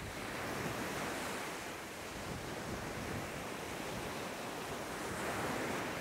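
Surf on a sandy beach: waves break and wash up the shore as a steady rush, swelling about a second in and again near the end.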